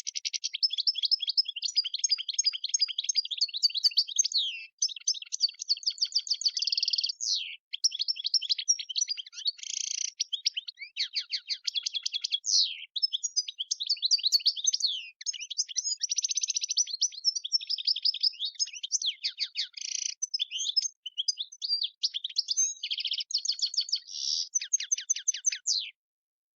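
European goldfinch singing: a long, fast twittering song of rapid chirps, trills and sliding notes with a few brief pauses, cutting off abruptly near the end.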